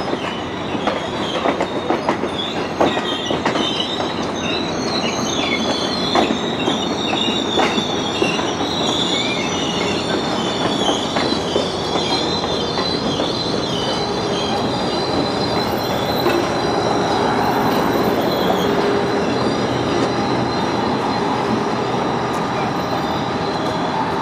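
Passenger train coaches rolling past, their steel wheels squealing on the rails in high, wavering tones over a steady rumble, with clicks over the rail joints through the first several seconds.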